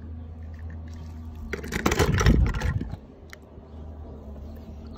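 Water splashing and sloshing in a plastic tub as a hand dunks a toy car in it, loudest about two seconds in, then a few small ticks.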